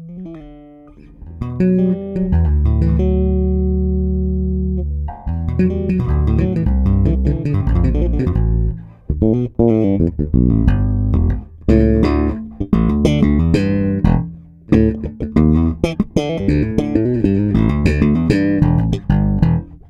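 Electric bass guitar played through a Darkglass Hyperluminal compressor pedal: a long held note sustains from about a second and a half in to about five seconds in, then a fast, busy run of plucked notes follows.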